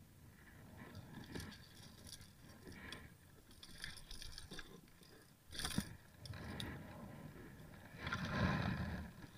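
Irregular scrapes, rustles and knocks on a plastic kayak deck as a landed fish is unhooked with pliers, with one sharp knock about halfway through and a louder rustle near the end.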